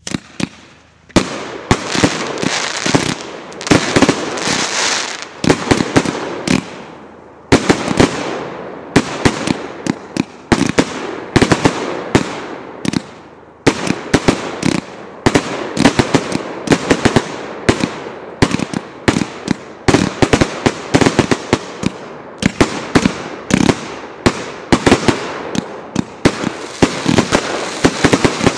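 A 100-shot, 1.25-inch-calibre fireworks cake (battery of salutes) firing in rapid sequence: sharp reports several times a second, each trailing into bursting and crackling, starting abruptly and running on with denser high crackle near the end.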